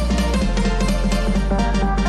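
Background music with a steady beat and a bass line that changes note about every second.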